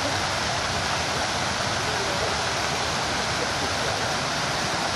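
Water from a large tiered fountain's jets spraying and splashing into its basins: a steady, even rush of falling water.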